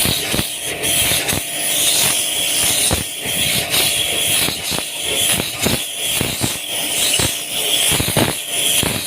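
Pressure washer running: a steady motor hum under the hiss of the water jet spraying an air conditioner unit, with irregular spatters as the jet moves.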